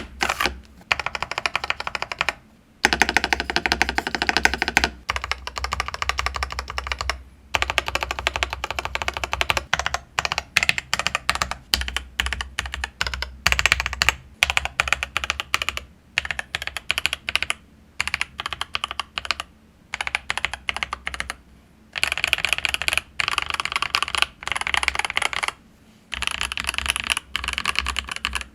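Typing on an IQUNIX ZX75 75% mechanical keyboard with TTC Ace switches and double-shot PBT keycaps in a tray-mounted ABS case. The keystrokes clack quickly and continuously in runs of a few seconds, broken by short pauses.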